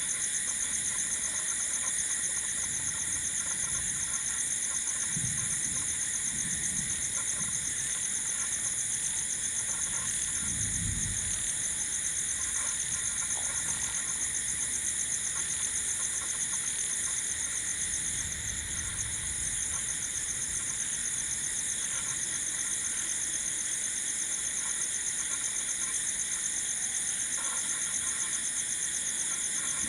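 Night chorus of crickets and other insects: steady, high-pitched trilling in several overlapping pitches.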